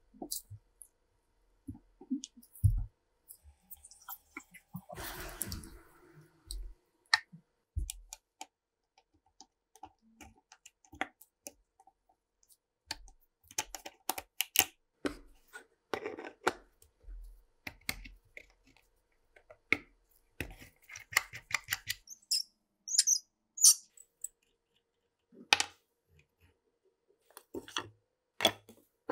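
Hand tools and the rusted metal parts of an old Zassenhaus coffee mill clicking, knocking and scraping as it is taken apart: irregular clicks and knocks, with a short scraping stretch about five seconds in.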